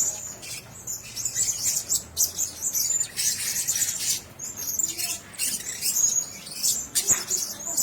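Blue-crowned hanging parrots calling, a steady stream of high, thin chirps overlapping one another.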